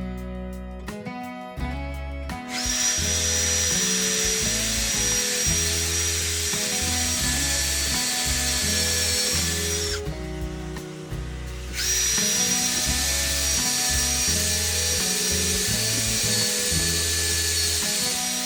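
Electric power tool running at a steady speed with a high whine, in two runs of about seven seconds separated by a short pause.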